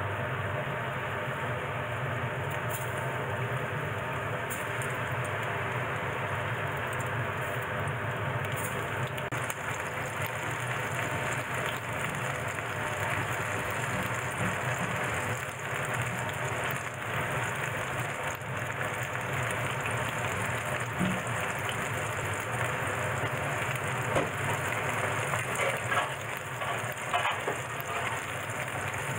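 Powder-coated daikon radish sticks deep-frying in oil in a frying pan: a steady sizzle, with louder crackles and pops near the end.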